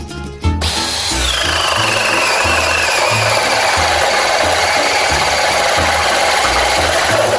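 Makita DHP481 18V cordless hammer driver drill in high gear boring a 76 mm hole through softwood with a large-diameter boring bit. The motor's whine drops in pitch as the bit bites in under heavy load, then holds steady while the bit cuts. At 115 Nm the drill handles the wide bore fairly smoothly.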